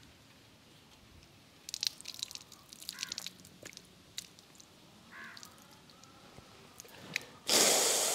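Water forced out through the nose during mouth-to-nostril jal neti, splashing and dripping onto leaves and a plant pot in irregular small crackles. Near the end comes a short, loud rush of breath blown out through the nose.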